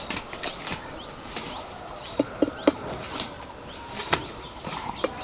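Footsteps and rustling through weedy undergrowth, with scattered twig snaps, and three quick, dull knocks a little after two seconds in. Small birds chirp faintly in the background.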